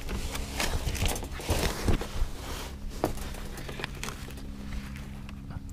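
Scraping, rustling and irregular clicks of a copper brake line being fed through a car's underbody by a gloved hand, busiest in the first three seconds with one sharper click about three seconds in, over a steady low hum.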